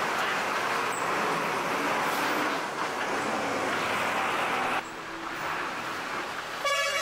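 Steady noise of loaded trucks' engines running while the trucks stand in a queue. The noise drops quieter about two-thirds of the way through.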